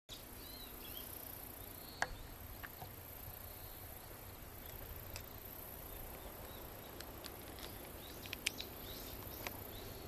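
Faint countryside ambience: a steady high-pitched drone of insects, with a few short bird chirps and a couple of sharp clicks, the loudest about two seconds in and again near the end.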